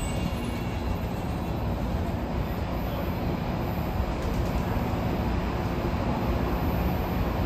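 SEPTA Market-Frankford Line train running on the track, a steady rumble of wheels on rail.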